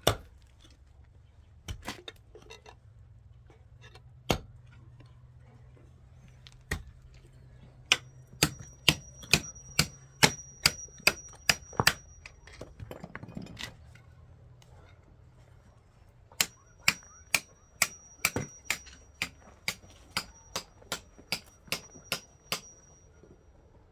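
Hammer blows on metal, a few scattered strikes and then two quick runs of about two blows a second, with a high ringing between the blows of each run.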